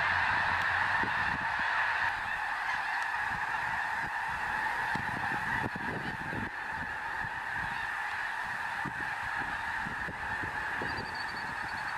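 A huge flock of snow geese, white and blue morphs together, calling all at once in flight: a dense, continuous din of overlapping honks.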